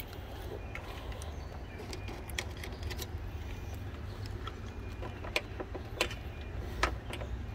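A car key on its ring clinking in a hand: scattered light clicks, a few sharper ones in the second half, over a steady low rumble.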